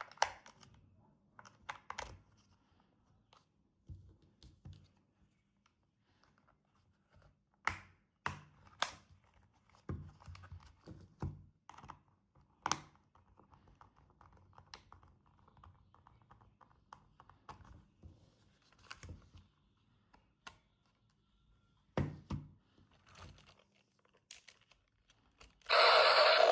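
Unboxing a toy RC car: scattered clicks, taps and knocks with light rustling of plastic and cardboard packaging, in irregular bursts. Loud music starts near the end.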